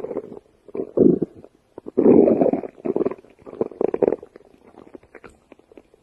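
Stomach growling in irregular bursts of rumbling, the longest and loudest lasting most of a second about two seconds in.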